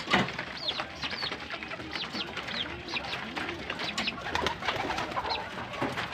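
Many birds calling together: a steady run of short, high, falling chirps, with low cooing like doves or pigeons about two to three seconds in.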